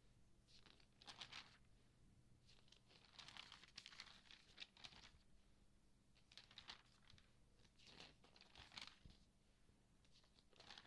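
Thin magazine pages being turned by hand, faint paper rustling and crinkling in about five separate page turns.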